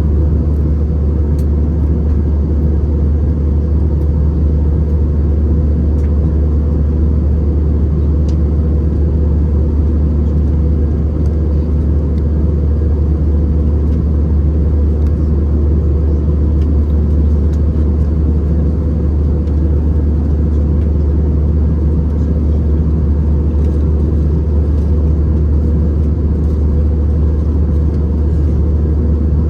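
Steady low drone inside the cabin of an Airbus A319-111, from its CFM56 jet engines and the air rushing past the fuselage, heard from a window seat.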